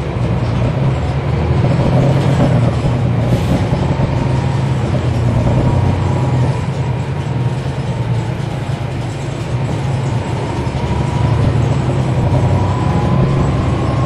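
Onboard sound of a 2012 NABI 40-SFW transit bus under way, its Cummins ISL9 inline-six diesel running with a strong low hum that swells about two seconds in and again near the end. A faint whine rises slowly in pitch over the last few seconds.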